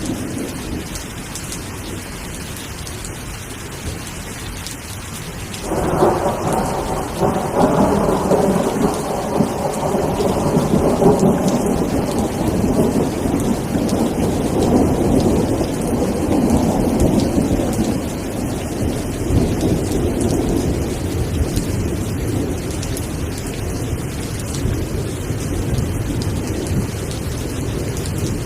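Steady rain falling, with a long roll of thunder that breaks in suddenly about six seconds in and slowly rumbles away over the next dozen seconds.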